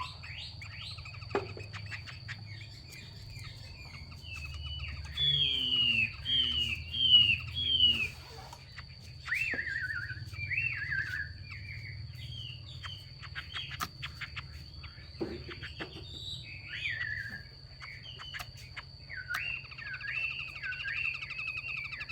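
Female Chinese hwamei (họa mi) giving 'xùy' calls, the female call used to rouse a male hwamei to sing. The calls come as runs of three to five down-slurred whistled notes with short pauses between runs. A faint steady high tone and a low hum run underneath.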